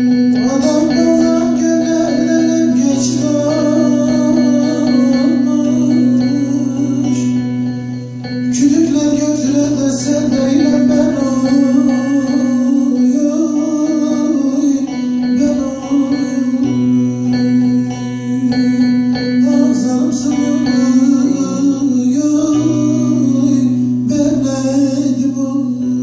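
Turkish folk tune played live on a long-necked plucked lute, a bağlama, with a melody moving over a steady held drone. The playing dips briefly about a third of the way in, then picks up again.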